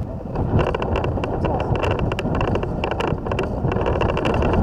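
Wind buffeting the microphone, with repeated short clusters of rapid high-pitched ticks.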